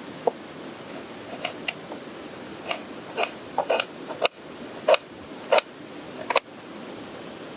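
About a dozen sharp, irregular knocks and clinks from hard objects being handled during food preparation, heard over the steady rush of a stream or small waterfall.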